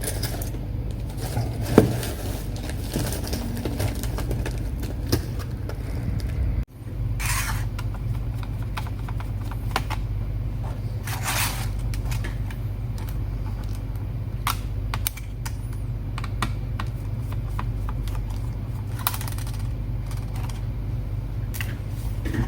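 Light clicks, taps and scrapes of hands working on an opened laptop's underside and its plastic and metal parts, with a few short swishes, over a steady low hum.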